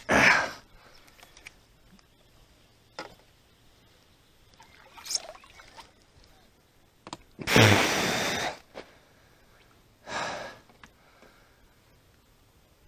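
Heavy, close-up exhales and sighs of a person, several separate puffs with the longest and loudest a little past halfway, between near-quiet stretches; a single sharp click a few seconds in.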